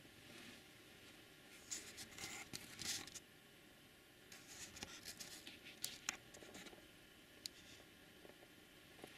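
Quiet, broken by two spells of close, crackly rustling and scraping, about two and five seconds in, with a few sharp clicks: handling noise from a hand-held camcorder.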